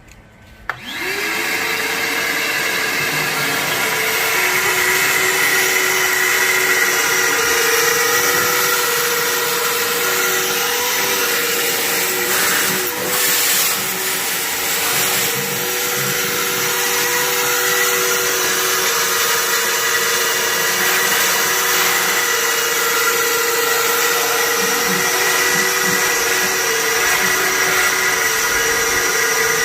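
Vacuum cleaner switched on about a second in, its motor spinning up with a rising whine and then running steadily, used to clean debris out of the emptied fish tank.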